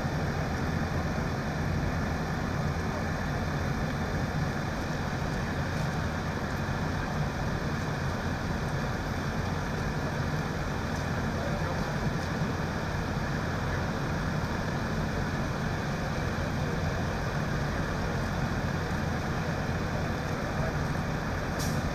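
Vehicle engines idling steadily, an even low rumble with no breaks.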